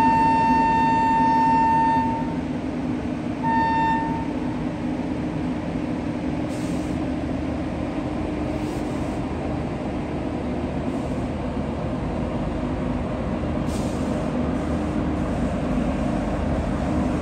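WAP-7 electric locomotive's horn: a long blast ending about two seconds in, then a short toot. The locomotive then pulls away from the platform with a steady hum and the rumble of wheels on rail, growing slightly louder near the end as the train picks up speed.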